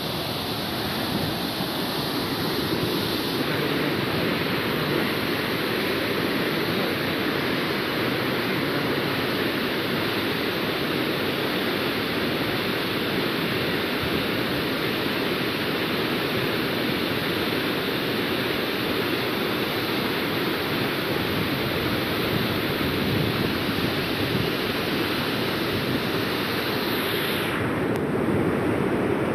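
Floodwater pouring through the open spillway gates of a river dam, a loud, steady rush of churning water. The hiss in it dulls somewhat near the end.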